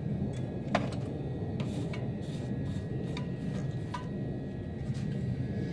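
A few light, irregular clicks and taps from small hand work, over a steady low background noise.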